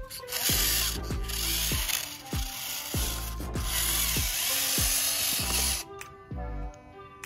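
Background music with a steady thumping beat, over a gritty mechanical whirr from the model tractor's small electric drive motor and gears. The whirr drops away about six seconds in, leaving the music alone.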